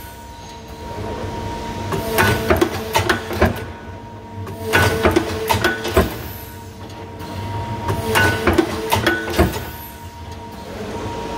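APS RPS-504 punching line punching metal plate at high speed: three rapid bursts of sharp punch strokes, each about a second and a half long and a few seconds apart, over a steady machine hum with a few held tones.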